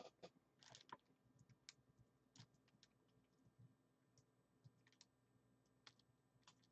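Near silence with scattered faint clicks and ticks and a soft rustle about a second in.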